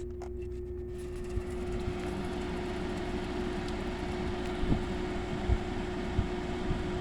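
GE 5,050 BTU window air conditioner starting up on high fan: a click, then the fan motor comes up to speed with a steady hum and an even rush of air that builds over the first couple of seconds and holds. Fan only, with the compressor not running; the unit is described as pretty quiet.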